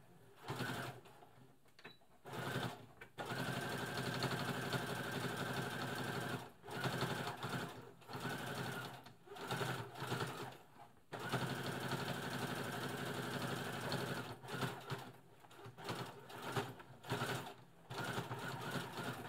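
A Brother FS60X computerised sewing machine stitching through thick denim, running in stop-start spells. There are two longer steady runs of about three seconds each, and short bursts near the end.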